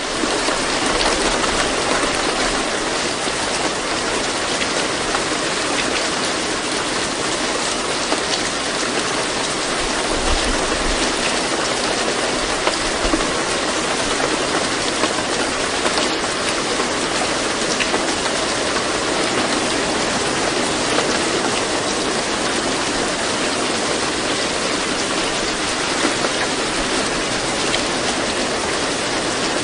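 Steady rain, a dense even hiss of falling rain that runs unbroken.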